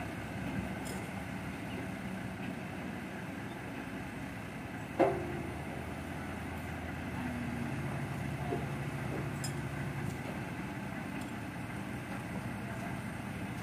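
Heavy equipment's diesel engines idling with a steady low hum, broken once about five seconds in by a single sharp knock.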